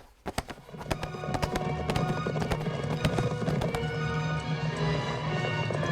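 Music rising in about half a second in, over a quick run of clip-clop hoofbeats.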